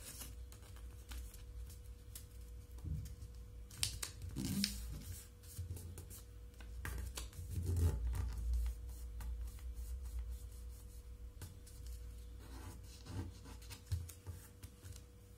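Origami paper being folded and creased by hand against a stone tabletop: scattered soft rustles, scrapes and rubs as fingers press and crease the folds.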